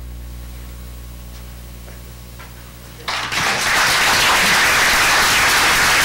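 A low steady hum, then just after three seconds in an audience starts applauding, quickly building to loud, steady clapping.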